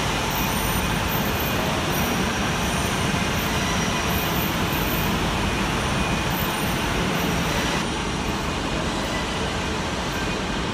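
Steady machinery noise from an overhead crane holding a steel coil over a truck whose engine is running. It eases slightly about eight seconds in.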